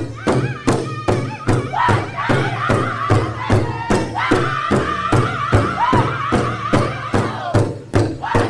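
Powwow drum group singing an intertribal song in high voices over a large powwow drum that they strike together, about three beats a second.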